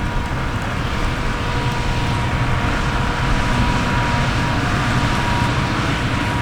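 Heavy diesel farm machinery working in a maize silage harvest, running steadily with a low rumble and a constant high whine.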